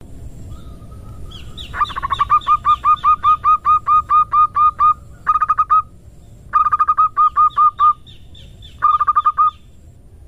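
Female zebra dove (perkutut) giving its rapid 'ngerot' call, the call used as a trapping lure. It is a quick run of short hooked coos, about four a second, that breaks off and starts again in three shorter runs.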